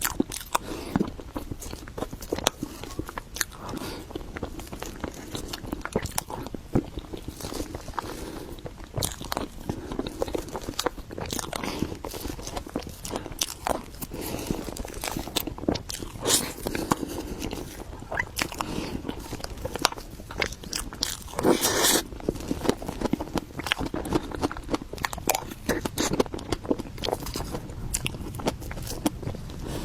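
Close-miked mouth sounds of eating matcha mille crepe cake: steady chewing with wet clicks and smacks. A louder bite or smack comes about two-thirds of the way through.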